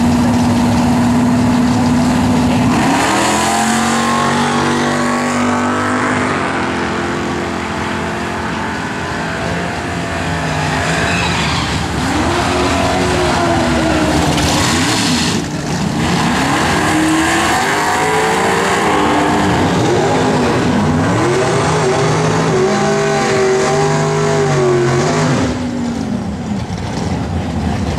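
Two Ford pickup V8s, one supercharged and one a 5.0 with nitrous, running hard with tyres spinning in a burnout, the engine note rising and falling over and over. Near the end the trucks run off down the track at full throttle.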